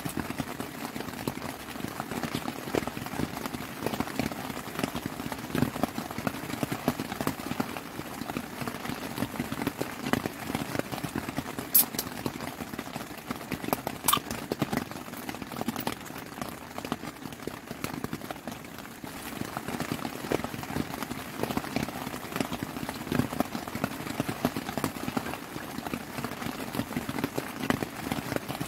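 Heavy rain drumming on a tent's fabric, a dense, irregular patter. Two sharp clinks of tableware come near the middle.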